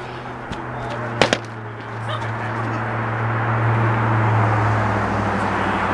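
Two quick sharp knocks about a second in, padded sword strikes on a shield, then a steady low engine hum that grows louder.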